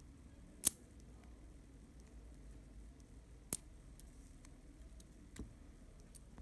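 Small sharp clicks from a Contarex camera's shutter and gear mechanism as it is handled in the fingers: a loud click near the start, a second about three seconds later, and a faint third near the end.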